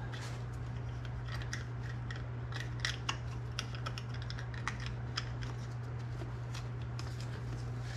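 Scattered light clicks and ticks, mostly in the first five seconds, as a motorcycle's radiator filler cap is fitted and twisted shut by a gloved hand, over a steady low hum.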